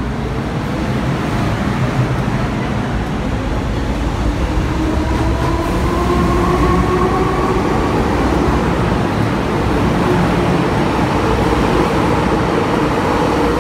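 Hong Kong MTR M-Train electric multiple unit pulling out of the station: a steady rumble of wheels and running gear, with a whine of several tones that rise in pitch for a few seconds as it picks up speed.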